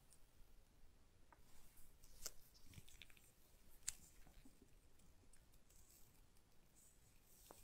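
Faint handling noise: gloved fingers turning a small plastic USB-C to USB-A adapter, soft rubbing with scattered light clicks, the sharpest about two and four seconds in.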